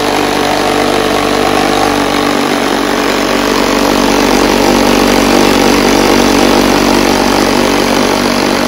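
Small motor in the base of an EduScience Dancing Gooey Slime Lab toy running steadily, whirling green slime around inside its clear plastic dome: a loud, even mechanical hum.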